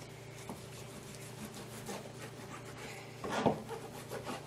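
Kitchen knife sawing through a stack of thin-sliced raw pork on a plastic cutting board: quiet rubbing strokes, with one louder knock about three and a half seconds in.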